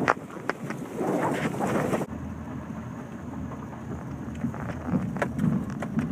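Vehicle driving slowly over a rutted dirt track, heard from inside: a steady rumble with scattered knocks and rattles from the bumps. About two seconds in the sound changes abruptly from a brighter, hissier noise to a duller, lower rumble.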